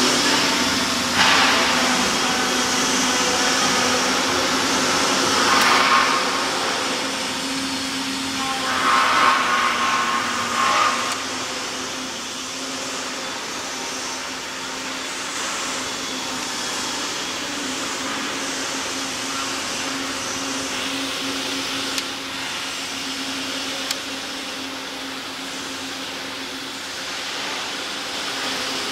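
Steady whirring hum of running workshop machinery with a constant low tone. Louder hissing swells come and go in the first eleven seconds, and two sharp clicks come near the end.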